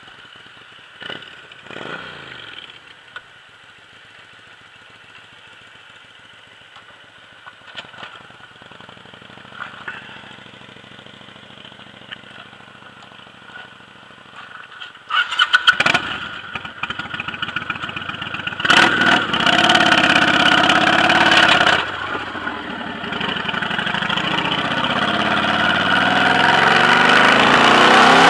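Cruiser motorcycle engine running while riding, fairly quiet at first. From about halfway, loud wind rushing over the microphone joins it, and the sound grows louder toward the end.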